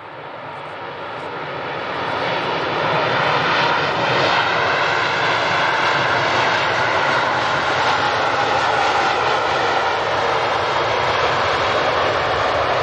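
Airbus A380 airliner's four jet engines running on the runway, a dense noise with a faint steady whine that builds over the first two seconds and then holds steady.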